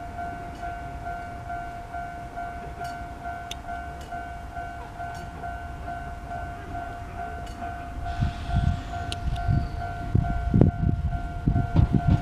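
Railway level-crossing alarm ringing with a steady pulsing two-tone bell while an Enshu Railway train pulls out of the station toward it. From about eight seconds in, the train's low rumble grows louder as it approaches.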